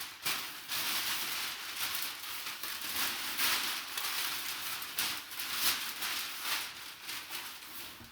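Packaging of a sealed memorabilia box being torn open and handled: continuous crinkling and rustling with many small crackles, dying away near the end.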